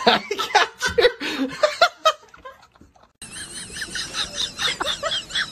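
A cat yowling in short, loud cries as its belly is rubbed, mixed with a person laughing; the cries stop about two seconds in. After a second of near silence, high warbling squeaks begin.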